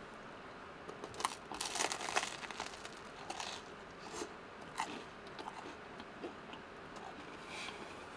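Biting into a crusty broiled crab sandwich, with the toasted bread crunching loudest between about one and two and a half seconds in, then quieter chewing.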